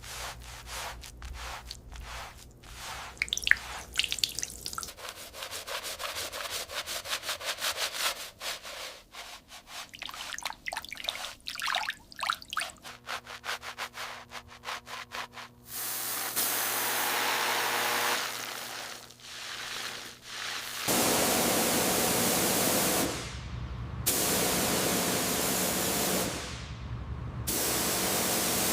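Rapid rubbing or scrubbing strokes against a surface. After that come four bursts of steady hissing spray, each a couple of seconds long, each starting and stopping abruptly.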